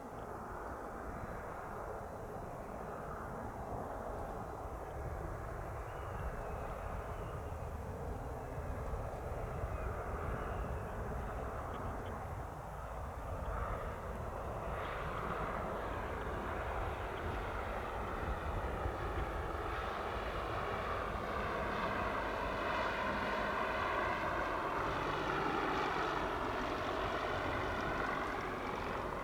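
Piper Archer's single piston engine and propeller on landing approach, growing louder as it comes in. Its engine tone drops in pitch near the end as it passes.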